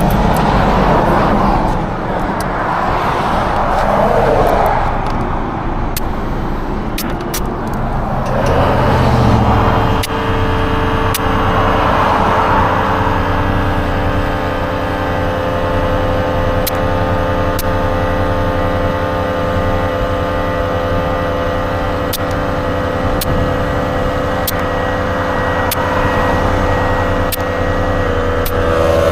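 Uneven handling and rustling noise, then about a third of the way in a small motor starts and runs at a steady pitch: a portable air compressor inflating a spare tire that was a little low on air.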